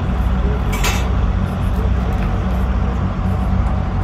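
A car running: a steady, loud, low engine-and-road drone. A brief clink comes about a second in.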